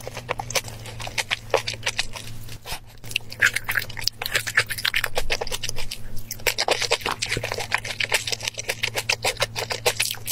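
Close-miked eating sounds: a person chewing, with dense, quick wet mouth clicks and smacks, over a steady low hum.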